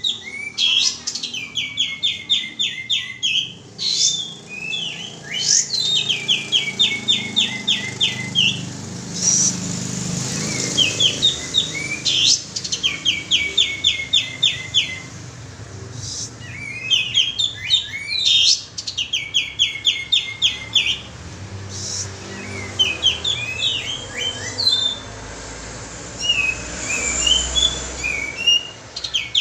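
Kapas tembak bird singing: phrase after phrase of rapid, evenly spaced high trilled notes, each run lasting a second or two, broken by short sweeping calls. This is a lure song, played to draw out or provoke other birds into singing.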